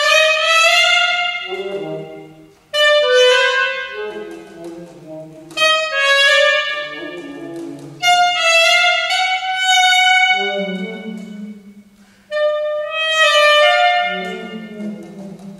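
Solo saxophone playing a contemporary classical piece: a series of phrases, each struck with a sudden loud high note that is held, then sinks to lower notes and fades before the next phrase begins.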